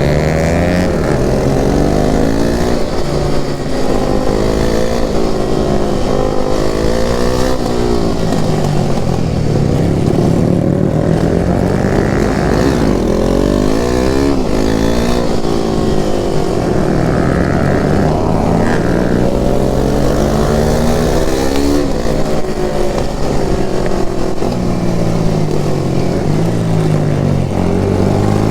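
Motorcycle engine under hard acceleration, its pitch climbing again and again and dropping back at each gear change.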